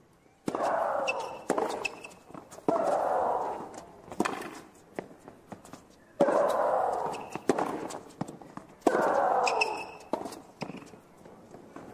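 Maria Sharapova's loud grunts as she strikes the ball, four times, each about a second long and falling in pitch, with sharp racquet hits and ball bounces between them.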